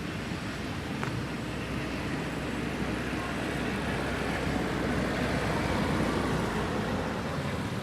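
Steady road traffic noise, a rushing sound that grows louder around the middle and eases off near the end.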